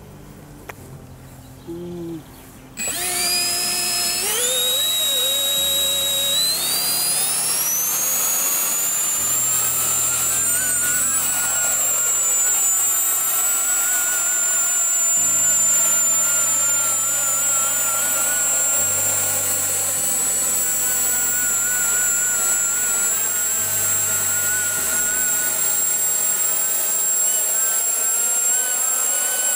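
Ducted-fan power system of a 3D-printed RC F-35B model spooling up with a rising whine about three seconds in, then running at a steady high whine with a wavering lower tone as the model lifts off and flies. Low held music notes sit underneath.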